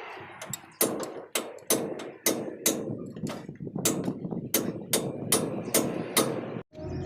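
A hammer striking metal in a steady rhythm, about three ringing blows a second, during work on a truck's rear axle and wheel hub. The blows stop shortly before the end.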